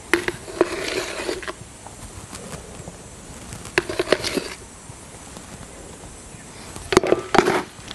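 Industrial talc being scooped from a plastic bucket with a small container and tipped into a mixing bucket: plastic scrapes, knocks and rustles. They come in three short clusters, about a second in, around four seconds and near the end.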